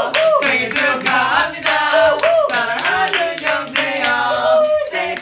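A group clapping in a quick, steady rhythm while several young men's voices sing along over the claps in birthday celebration.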